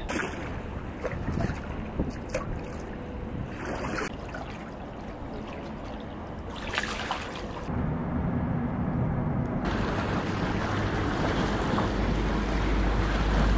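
Wind buffeting the microphone over river water lapping against stone quay steps, the sound shifting abruptly a few times. A low rumble builds near the end as a fast passenger ferry passes.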